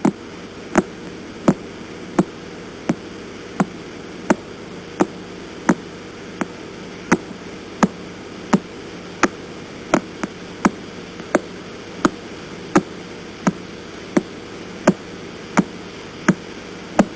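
Pulsar radio signal converted to audio: sharp, evenly spaced clicks about every 0.7 seconds over a steady static hiss and hum, each click one pulse of radio energy as the neutron star's beam sweeps past Earth.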